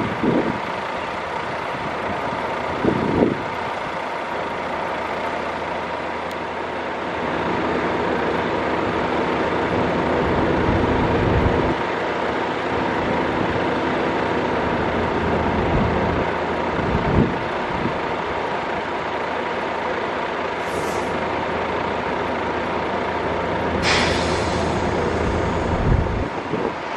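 Airbus A330-243F freighter's Rolls-Royce Trent 700 turbofans at takeoff thrust during the takeoff roll: a steady distant roar with a whine. Wind thumps on the microphone now and then.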